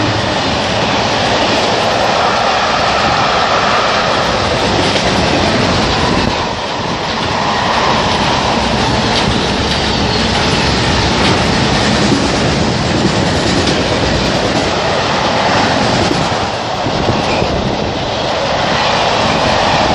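Covered car-carrier wagons of a freight train rolling past close by, a steady loud rush of wheel and rail noise with dense clicking of wheels over the track.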